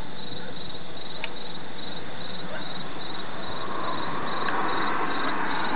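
Thunderstorm rain falling steadily, a continuous hiss that swells about four seconds in.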